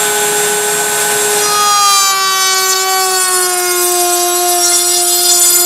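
Router in a Bosch router table running with a 3/4-inch straight bit, cutting a rabbet along the edge of a pine board. The motor's steady whine sags slightly in pitch as the cut goes on, over the hiss of the bit cutting the wood.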